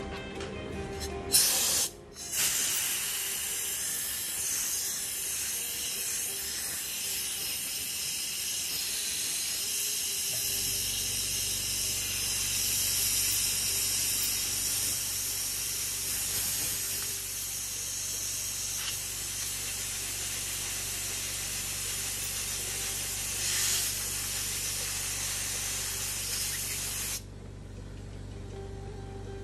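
A steady jet of air hissing, as from a workbench air tool used in electronics repair. It starts about a second in, dips briefly, and cuts off suddenly near the end, with a low steady hum joining partway through.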